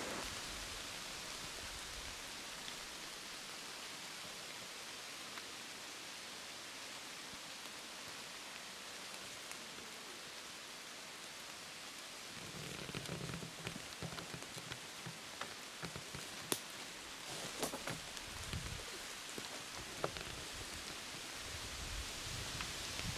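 Steady rain falling, an even hiss, with scattered sharp drip ticks and light rustling from about halfway through.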